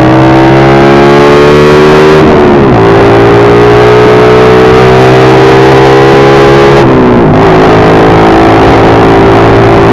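Motorcycle engine running under way, its note creeping slowly upward; the revs dip sharply and pick back up twice, about two seconds in and about seven seconds in.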